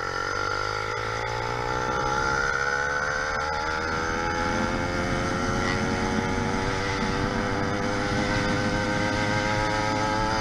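YD100 two-stroke motorized-bicycle engine, built with a window piston, running steadily. Its pitch climbs gradually over the first few seconds as the revs build, then holds steady.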